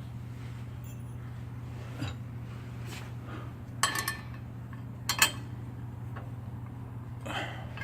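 Metal hand tools clinking against fittings a few times while a fastener is tightened, over a steady low hum.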